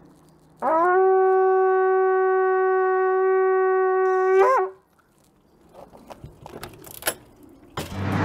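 A long spiralled shofar blown in one steady blast of about four seconds, scooping up to its note at the start and breaking upward as it ends. A few faint clicks follow, then music comes in just before the end.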